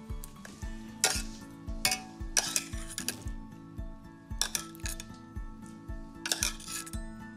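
Metal utensils clinking and scraping against dishes in several short bursts, over background music with a steady beat.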